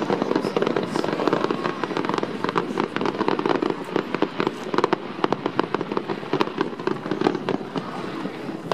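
A fireworks display going off continuously: many sharp cracks and bangs in quick, irregular succession over a constant din, busiest in the first few seconds.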